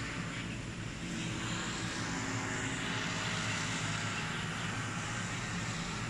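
Steady outdoor rushing noise with a faint, even low drone.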